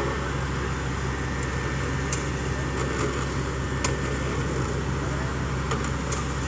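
Borewell drilling rig running steadily with a low, even machine hum, with a couple of sharp metallic clicks about two and four seconds in.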